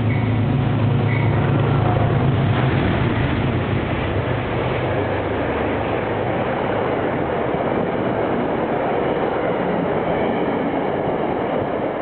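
A CDOT GE Genesis P32AC-DM locomotive passes close by with a strong low hum, followed by its Shoreline coaches rolling past at speed in a steady rush of wheels on rail. The low hum fades after about three seconds.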